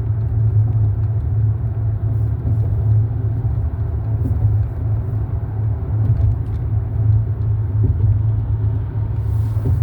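Steady low rumble of a moving car's road noise, even and unbroken.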